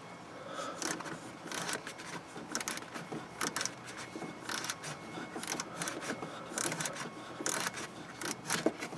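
Irregular light metal clicks and rattles of a 1/4-inch socket ratchet with an extension being worked onto a bolt in a cramped engine bay.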